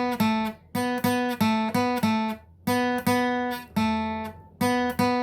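Acoustic guitar picking a slow single-note melody, notes plucked one at a time in short groups of two to four with brief pauses between, each ringing out and fading: the simplified intro solo being played through.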